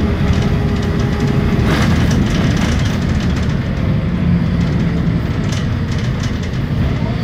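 Steady low rumble of a moving vehicle heard from inside its cabin, with scattered light rattles and clicks.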